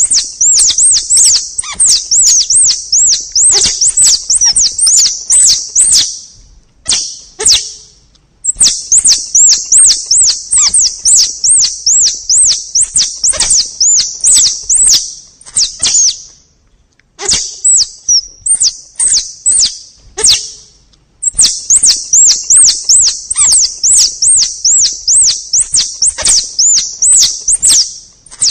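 Forest squirrel (tupai) calls played as a hunting lure: long runs of rapid, high-pitched chirping notes, about three a second, mixed with sharp clicks. The calling breaks off briefly three times.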